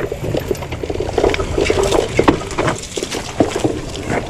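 Mountain bike clattering as it rolls down a rough rocky trail: a fast, irregular run of knocks and clicks from the tyres, frame and chain hitting rock.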